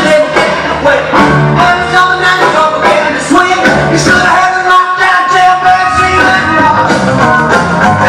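Loud music with a singing voice, played for a choreographed dance.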